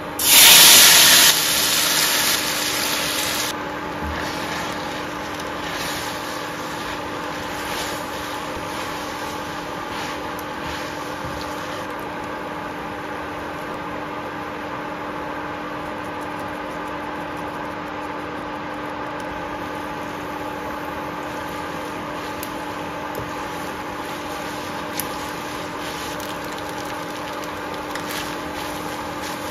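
Hot oil sizzling loudly in a frying pan for a few seconds, then settling into the steady hum of an induction cooktop, with a faint click of utensils now and then.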